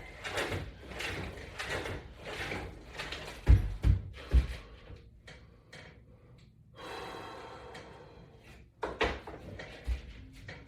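Resistance band workout on a wall-mounted latch bar: a run of rhythmic strokes about twice a second, then three heavy knocks of the equipment a few seconds in, and another couple of knocks near the end.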